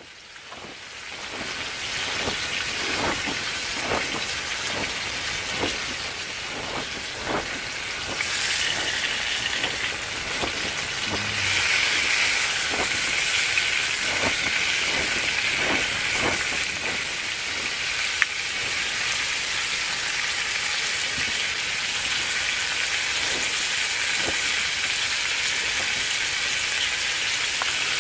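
Food sizzling in a frying pan over a wood-fired camp stove, growing louder about eight seconds in. Short knife strokes on a wooden cutting board tap through it every second or so in the first half.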